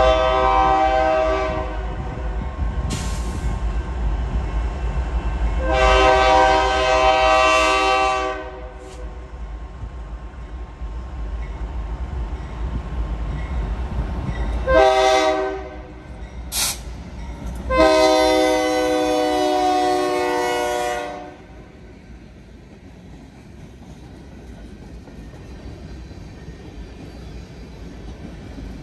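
Diesel freight locomotive's multi-chime air horn blowing a long blast, another long blast, a short one and a final long one, the pattern of a grade-crossing signal. A low engine rumble runs underneath. After the last blast the loaded ballast hopper cars rumble past on the rails.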